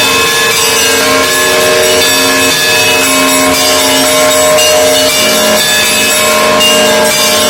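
Russian Orthodox monastery bells ringing together in a continuous peal: many overlapping bell tones, low and high, struck again and again so the ringing never dies away.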